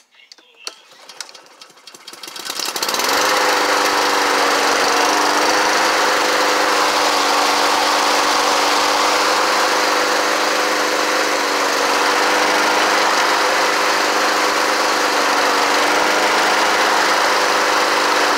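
Craftsman M250 front-wheel-drive self-propelled push mower being started: a few short clicks, then the single-cylinder engine catches about three seconds in and runs steadily at speed. It is a test run of the self-propel drive after the belt keeper was refitted, and the engine begins to wind down at the very end.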